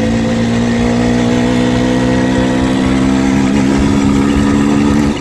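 Minsk motorcycle's two-stroke single-cylinder engine running hard and steadily under load in third gear, pulling strongly with no jerking.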